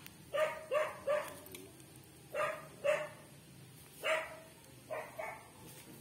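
A dog barking, about eight short barks in small groups of two or three.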